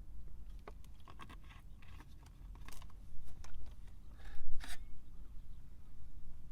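Camping gear being handled: a run of light clicks and scrapes, with a louder clatter about four and a half seconds in, over a steady low rumble.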